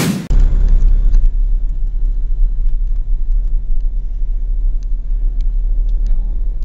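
Vehicle driving across a rough grass paddock, heard from inside the cab: a loud, steady low rumble of engine and tyres, with a few faint clicks and rattles.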